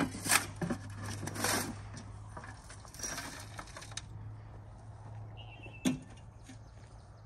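A shovel scraping and tossing loose dirt, with scattered clanks and scrapes against a metal wheelbarrow, over a faint low steady hum.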